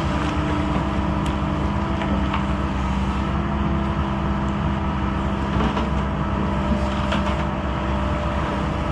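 Hyundai hydraulic excavator's diesel engine running steadily under working load as the bucket and thumb dig in the shallow water, with a few faint knocks.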